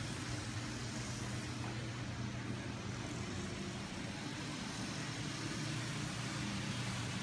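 Steady mechanical drone of construction machinery and string trimmers (weed whackers) working outside: a constant low hum with a hiss over it.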